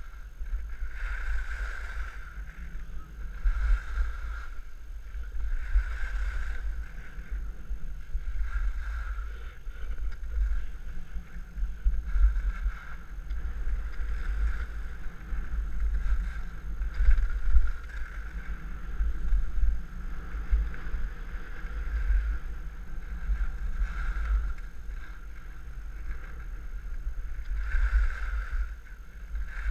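Wind buffeting the microphone of a camera carried on a ski run, with skis scraping over packed snow in a swell about every two seconds as the skier turns.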